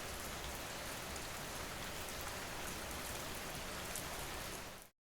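Steady rain with scattered drop ticks, cutting off quickly near the end.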